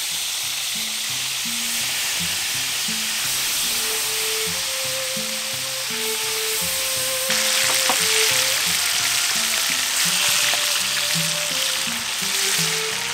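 Fish steaks deep-frying in hot oil in a pan: a steady sizzle that grows louder about seven seconds in. Background music with a melody plays underneath.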